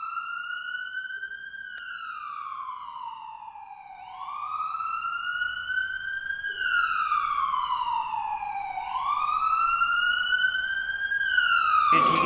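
Ambulance siren sound effect: a wailing siren that glides up in pitch and then slowly back down, about three cycles of roughly five seconds each. Near the end, a sudden broad noise from the recorded footage comes in under it.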